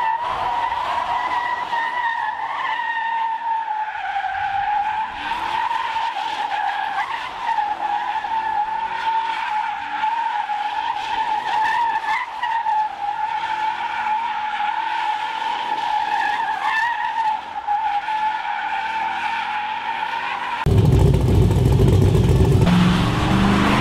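Pickup truck doing a burnout: its rear tyres spin on the pavement with a steady, slightly wavering squeal. About 21 s in it cuts suddenly to a louder, deeper sound.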